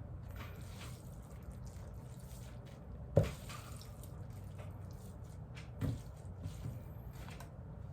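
People eating noodles: soft wet eating sounds over a low steady hum, with a sharp knock about three seconds in and a softer one near six seconds.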